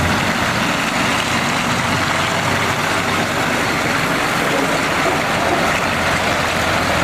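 DAF CF concrete mixer truck's diesel engine running steadily as the truck drives past on a gravel track.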